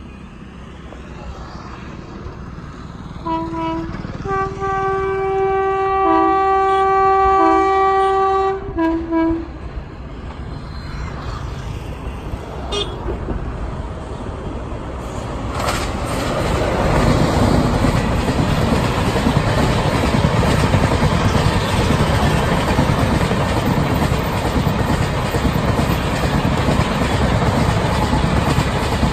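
WAP-7 electric locomotive sounding its horn in a series of blasts, a short one, then a long one with brief breaks, then a short one, from about three to nine seconds in. From about halfway, the rumble of the approaching Humsafar Express grows louder and stays loud as the locomotive and coaches roll past.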